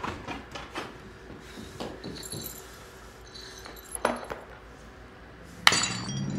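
Film soundtrack: a scattering of light clinks and knocks, then a sharp bang near the end. A car engine starts to rumble low right after the bang.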